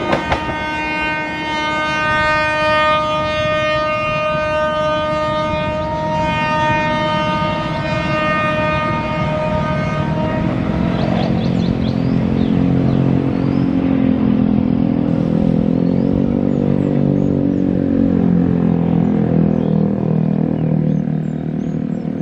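A diesel train's horn sounds one long steady blast of about ten seconds over the rumble of the departing train. After that a road vehicle's engine runs close by, its pitch rising and falling.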